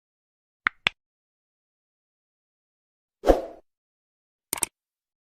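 Dead silence broken by short sharp sounds: a quick double click a little under a second in, a louder dull thump about three seconds in, and another double click near the end.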